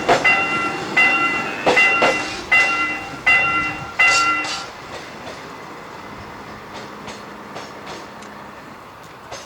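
Railroad crossing warning bell ringing in a steady, evenly spaced ding-ding, about four strikes every three seconds. Each strike starts sharp and fades. The bell stops about four and a half seconds in, leaving a steady, quieter background noise.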